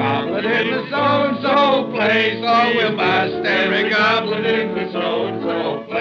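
A group of men singing together over a piano.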